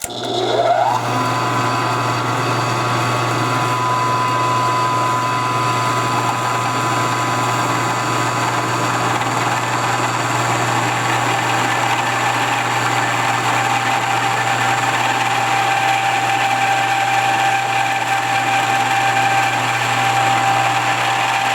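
Milling machine switched on, its spindle motor whine rising in pitch over the first second and then running steadily with a low hum, as the custom-made cutter feeds down into the partly bored hole.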